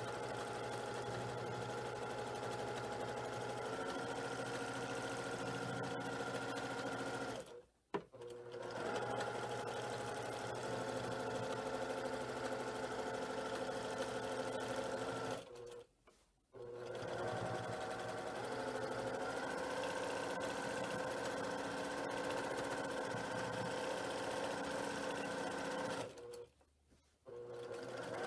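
Brother PQ1500SL straight-stitch sewing machine stitching during free-motion quilting, running in long steady stretches. Its pitch shifts as the speed changes, and it stops briefly three times.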